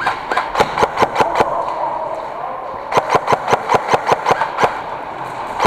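Airsoft electric rifle firing two strings of rapid shots, about six a second, the second string starting about three seconds in, over a steady background hum.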